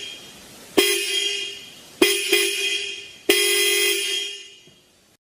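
12-volt electromagnetic disc car horn (Columbia 'paquerinha', 92 mm) sounding in short blasts, about three of them with a quick double tap near two seconds in. Each blast is one bright, buzzy tone that fades away after about a second.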